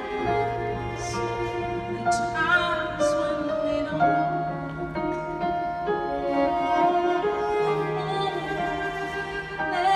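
A woman sings a slow operatic ballad with a live symphony orchestra and its strings, heard from the audience seats in a large hall.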